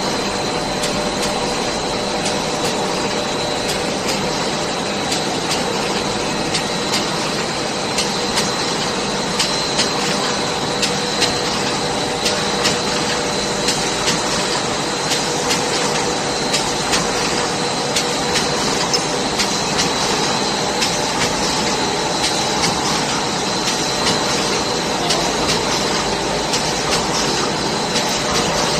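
Plastic bag cutting machine running steadily: a constant mechanical hum with a high whine, and sharp clicks repeating at a regular pace.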